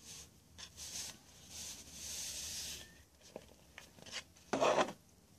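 Coarse glass beads poured from a plastic bowl into a nylon stocking, heard as a steady hissing trickle for about a second, with scattered small clicks and a louder brief burst of noise near the end.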